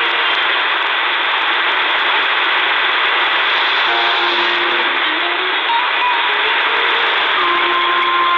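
Shortwave radio static from a C.Crane Skywave portable tuned to 5800 kHz in AM: a steady, loud hiss cut off above about 4 kHz, with faint tones under it that step in pitch now and then, the weak program audio of the station.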